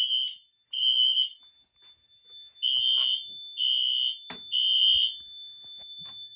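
Fire alarm sounding a high, piercing beep in groups of three with a pause between groups, the temporal-three evacuation pattern. The alarm was set off by smoke spray in a Radionics smoke detector. A few sharp knocks fall between the beeps.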